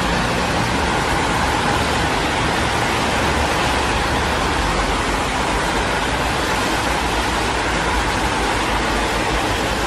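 Road traffic noise: a steady, even rush of passing vehicles, with no horn sounding.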